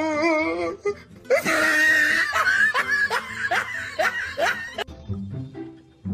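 Laughter: a run of quick ha-ha bursts from about a second in until near five seconds, over background music. It opens on a wavering, drawn-out vocal sound.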